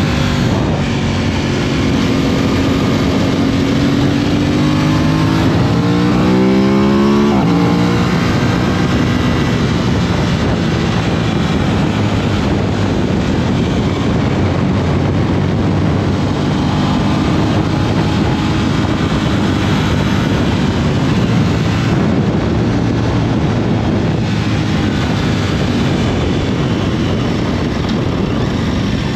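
Aprilia RS 660's parallel-twin engine accelerating, its pitch climbing for about five seconds, then dropping sharply at an upshift before running on at steadier revs. A heavy rush of wind noise runs beneath it.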